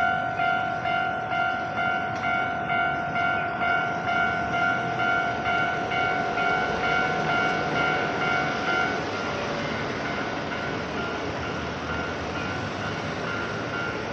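Japanese railway level-crossing alarm ringing its evenly repeating electronic ding while a Nankai Koya Line train runs through the crossing. The alarm stops about nine seconds in, and the train's running noise continues.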